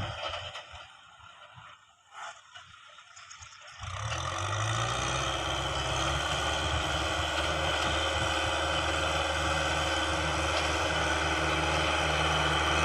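Engine of a large farm machine running steadily. It is faint and patchy for the first few seconds, then comes in fully about four seconds in and holds a low, even hum.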